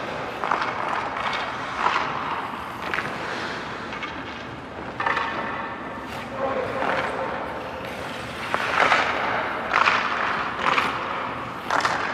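Hockey skate blades scraping and carving on rink ice, a dozen or so short scrapes, with a few sharp clicks of stick and puck on the ice.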